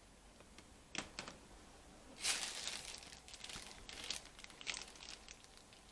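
A single plastic click about a second in, then a few seconds of crinkly rustling with small sharp clicks: hands handling and turning over a laptop's plastic casing during disassembly.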